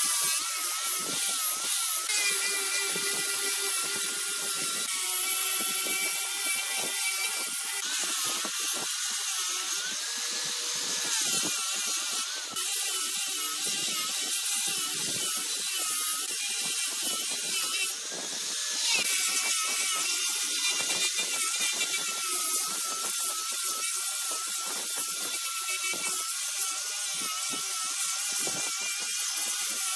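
Large wood lathe spinning a workpiece while a turning tool cuts it, giving a steady, high, wavering whine over a hiss of cutting. The whine briefly drops away about 18 seconds in, then picks up again.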